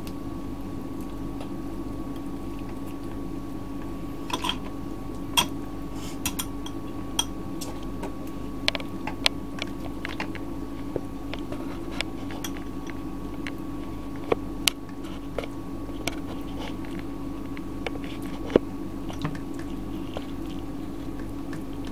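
Scattered light taps and clicks of kitchen work at a worktop, with a raw chicken breast being cut, stuffed and pinned, over a steady background hum.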